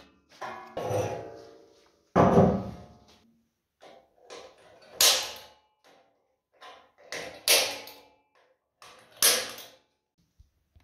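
Sheet-metal grill parts and squared pipe being handled and fitted. It is a series of separate clanks and scrapes with short pauses between them, and the loudest comes about two seconds in.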